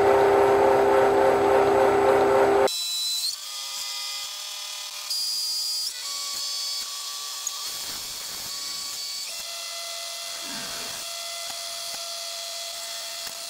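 CNC milling machine running a program: the spindle turns an end mill cutting a plate while the stepper-driven axes feed it. For the first few seconds it is loud with a strong ringing tone; then it drops suddenly to a quieter run whose steady pitches step up and down as the feed changes.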